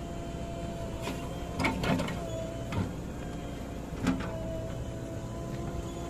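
JCB 3DX backhoe loader's diesel engine running steadily while it works soil into a tipper truck, with a few short clanks and thuds about a second and a half to two seconds in, near three seconds and about four seconds in.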